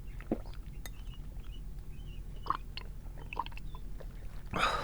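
Close-miked chewing of instant noodles, with small scattered wet mouth clicks, and a louder breathy rush near the end.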